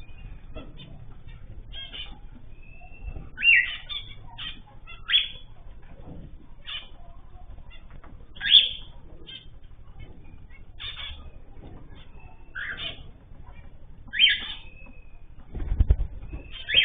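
Caged ornamental birds calling: short chirps and sweeping calls repeated every second or two, a few of them louder, with a brief low fluttering burst near the end.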